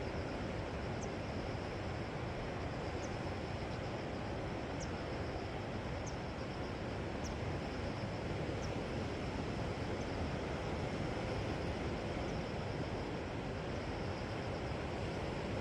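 Steady wash of sea surf, with faint short high chirps every second or so.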